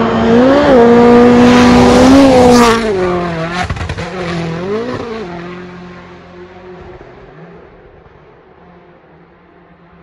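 Hyundai i20 Rally1's turbocharged 1.6-litre four-cylinder rally engine at full attack going past, its note rising and dropping again and again through gear changes and throttle lifts, with a few sharp cracks about three and a half seconds in. The sound is loudest in the first three seconds, then fades away into the distance.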